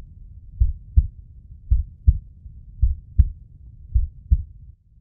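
Heartbeat sound effect: slow, steady low double thumps, about one pair a second, which stop shortly after the end.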